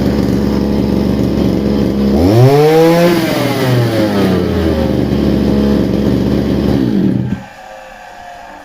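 Svityaz petrol brush cutter's small two-stroke engine idling, revved up once about two seconds in and falling back to idle, then cutting off suddenly about seven seconds in.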